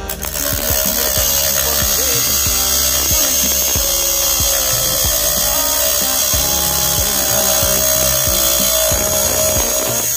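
RS-785 DC motor spinning a thin 4-inch abrasive cut-off disc through a thin iron plate: a harsh grinding hiss with the motor's steady whine. It stops at about ten seconds, over background music.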